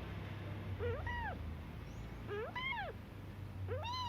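Two-week-old kitten meowing: three high cries, each rising then falling in pitch, about a second and a half apart, the last near the end.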